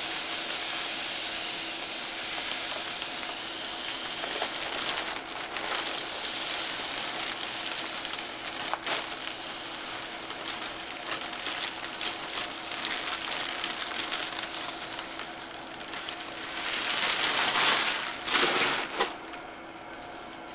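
Granulated corn cob tumbling media pouring from a plastic bag into a tumbler bowl: a steady dry hiss of grains with many small ticks and the bag crinkling. Louder rustling near the end as the last of the media is shaken out and worked by hand.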